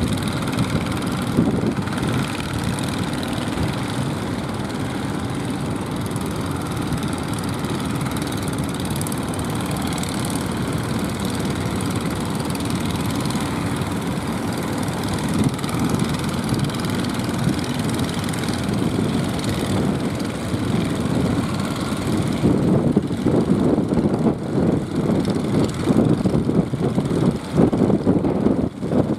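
Engines of motorised jukung fishing boats running steadily as the boats cross the choppy estuary mouth, with the low rumble turning uneven and gusty from about two-thirds of the way in.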